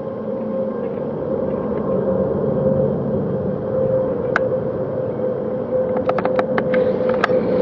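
Airbus A350-900's Rolls-Royce Trent XWB turbofans at takeoff climb thrust: a steady jet roar with a strong droning tone, growing slowly louder. A few sharp clicks sound, one about halfway and a cluster near the end.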